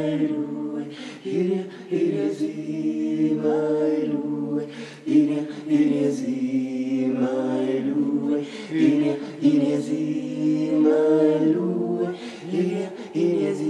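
Several voices chanting a cappella in long held, wavering notes over a steady low sustained note.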